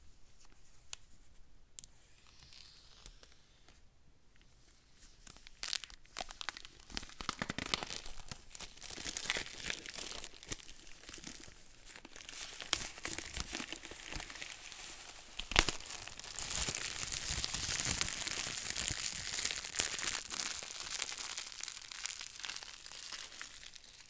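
Packaging on an iPad Mini box being torn open and crinkled: faint at first, then a long run of tearing and crackling with sharp snaps from about five seconds in, densest near the end.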